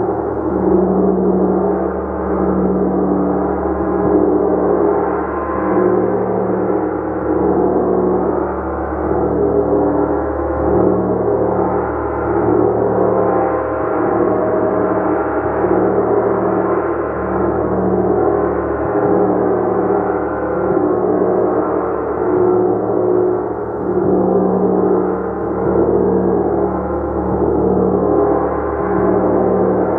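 Gong played continuously: a dense, sustained wash of overlapping ringing tones that swells and ebbs about every two seconds.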